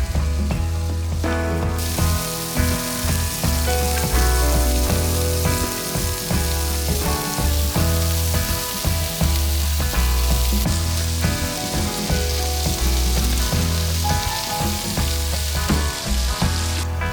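Food frying, a steady sizzling hiss that starts about two seconds in and cuts off near the end, under background music with a prominent bass line.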